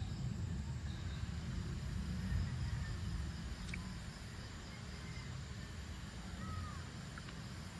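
Outdoor dusk ambience: a steady, unevenly pulsing low rumble with faint insects trilling high up, a small click about four seconds in and a brief faint gliding chirp near the end.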